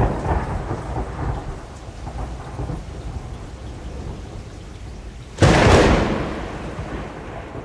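Thunderstorm: a rumble of thunder dying away at the start, then a sudden loud thunderclap about five seconds in that rumbles and fades, over steady rain.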